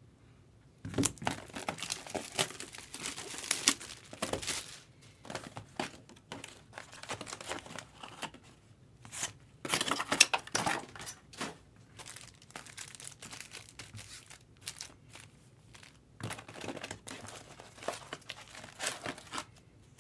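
A Topps Cosmic Chrome trading card box is torn open and its foil card packs are handled, with crinkling and tearing in irregular bursts starting about a second in.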